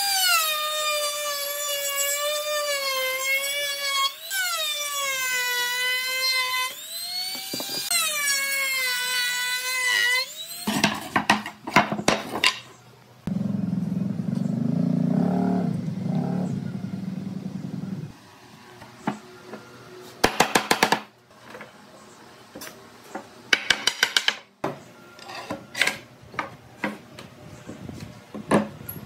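Handheld trim router spinning at high speed and cutting along the edge of a pine board, its high whine wavering and dipping in pitch as the bit takes the wood, for about the first ten seconds. Then come sharp wooden knocks, a few seconds of low steady rumble, and scattered knocks and clicks as the frame is assembled and clamped.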